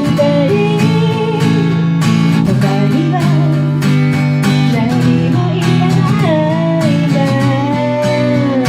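Acoustic guitar strumming steady chords under a wavering, sliding melody line, the instrumental or wordless bridge of a pop ballad.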